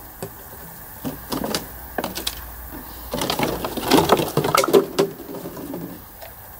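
Empty plastic water bottles being handled and set down on concrete, giving irregular crackles, crinkles and light knocks, thickest through the middle.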